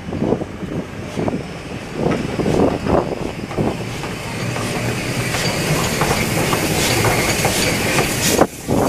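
Maroon coaches of a steam-hauled train rolling slowly over the tracks, wheels clacking irregularly over rail joints and pointwork with a steady rumble. A high hiss builds through the second half as LMS Princess Coronation locomotive 6233 draws near, wreathed in steam.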